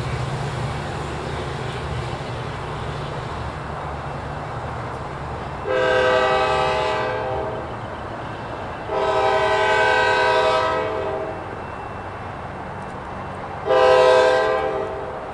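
An approaching train's multi-note air horn sounding three blasts: two long and one shorter, the long-long-short opening of the standard grade-crossing signal.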